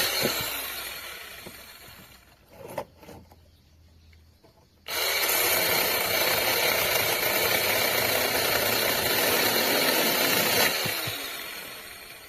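SINPY 6-inch battery mini chainsaw running twice with a high motor whine. The first run winds down over about two seconds. After a click about three seconds in, it starts again sharply about five seconds in, runs steadily for about six seconds, and winds down near the end as the trigger is let go.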